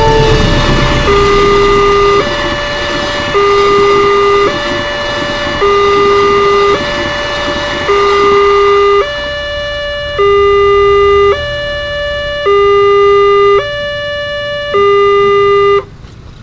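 Railway level-crossing warning alarm sounding a two-tone signal, a lower and a higher tone alternating about once a second, while a diesel-hauled passenger train passes with wheel and engine noise, heaviest in the first half. The alarm cuts off near the end, when the barriers are raised and the crossing is clear.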